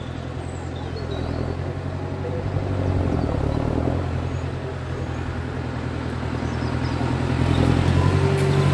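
Large farm tractor's diesel engine running, getting louder as it pulls across the level crossing toward the microphone.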